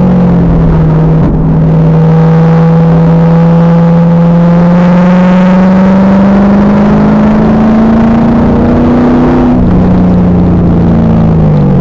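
Pontiac Trans Am Firehawk's 5.7-litre LS1 V8 through its SLP exhaust, pulling hard on track: the pitch drops at an upshift about a second in, climbs steadily for several seconds, drops at a second upshift, then falls away near the end. The recording is overloaded and harsh.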